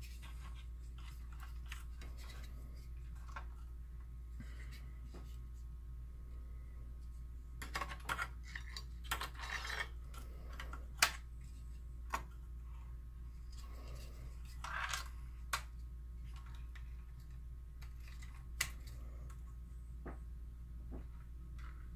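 Scattered light clicks and knocks of hard plastic parts being handled: a projector lamp fan and its housing being fitted back into an open projector chassis by hand. They come in a cluster around the middle and then a few single clicks, over a steady low hum.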